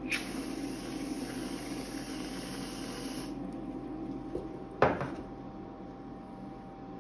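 Aerosol whipped-cream can spraying with a steady hiss for about three seconds, then a single sharp knock as the cup is set down on the metal cold plate about five seconds in.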